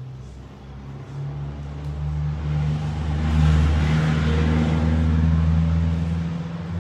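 A motor vehicle's engine going by, with a low steady drone that swells to its loudest about halfway through and then fades.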